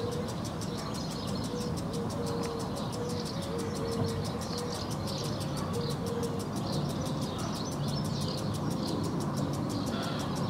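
Pond-side park ambience: a lawn sprinkler ticks rapidly and evenly, while swallows and house martins twitter over a low, steady rumble of distant traffic.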